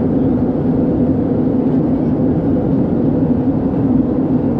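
Steady cabin drone of an Airbus A320-214 in flight, heard from a window seat: the hum of its CFM56 turbofan engines mixed with the rush of air along the fuselage, unchanging throughout.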